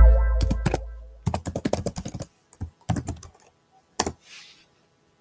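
A deep bass boom with a ringing tone hits at the start and dies away over about a second. Then come quick runs of computer keyboard typing clicks and a last single click.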